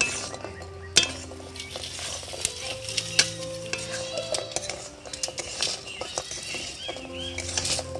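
A flat metal spatula scrapes and clatters against an aluminium kadai, stirring fried gaja pieces through thick sugar syrup, with a sharp clack about a second in.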